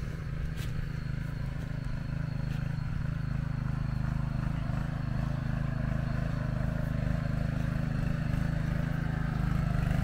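Engine of a pat pat two-wheel walking tractor running steadily while tilling garden soil, a low drone with a fast even beat that gets slightly louder.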